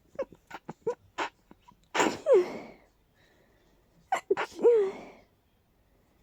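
A person's allergy sneezing fit through a stuffy nose: a run of quick sniffs and catching inhales, then two loud sneezes about two and a half seconds apart, each with a voiced cry that falls in pitch.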